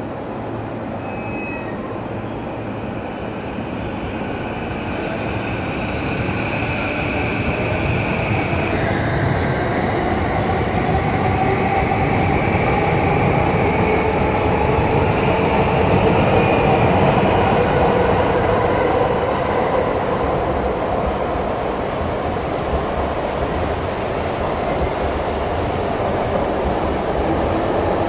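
Electric commuter train moving along the platform: the motor whine rises slowly in pitch as it picks up speed, over wheel rumble and wheel squeal. It grows louder toward the middle, then eases off.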